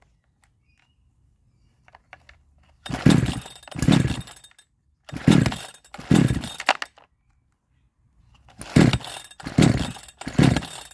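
62cc Chinese chainsaw on full choke being pull-started: about seven hard pulls on the starter cord in three quick groups, each a loud rasping crank that falls in pitch as the pull slows. The engine does not catch, because a replacement ignition coil is giving only a weak spark.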